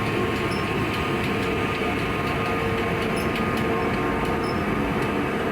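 Steady machinery din of a coal-fired steamship's boiler and engine room: an even rumbling noise with a constant hum running through it.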